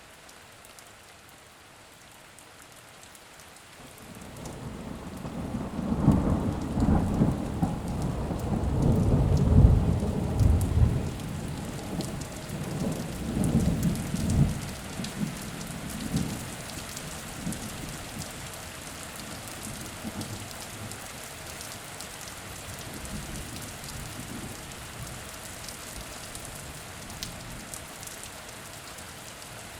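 Steady rain pattering, with a long roll of thunder that builds about four seconds in, rumbles loudest over the next several seconds and dies away, leaving the rain alone.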